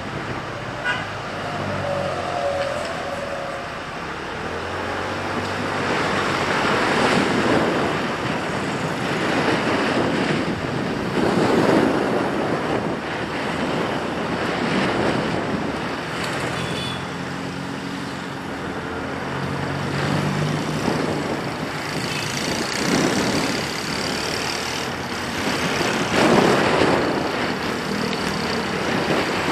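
Road traffic: motor vehicles running and passing, their engine and tyre noise swelling and fading every few seconds.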